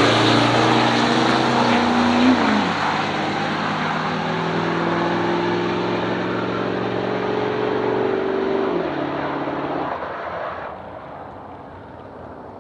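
Diesel pickup trucks accelerating hard away down a drag strip, the nearer a 1998 Dodge Ram with a 5.9-litre Cummins inline-six. The engine note drops at a gear shift about two seconds in and again about nine seconds in, then fades as the trucks pull away.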